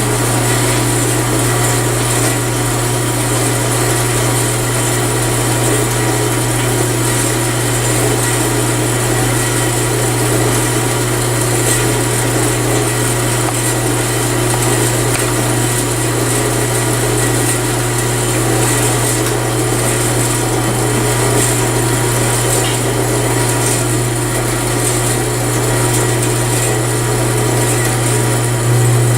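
Horizontal bandsaw running steadily with a strong, constant low hum, its blade turning but not yet cutting.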